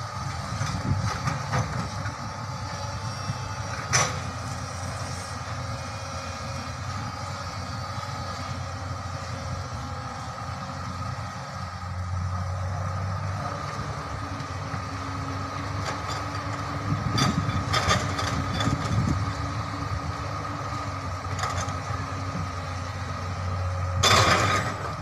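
Hydraulic excavator's diesel engine running steadily, getting louder about halfway through as the boom lifts a bucket of soil. Scattered clanks, then a short loud rush near the end as the bucket dumps its soil into the dump truck's bed.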